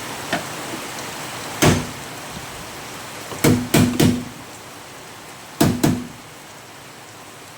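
Hammer blows on a steel repair panel in a car boot floor, knocking it down to sit flush: one blow, then a quick group of three, then two more, each with a short metallic ring. Steady rain hiss underneath.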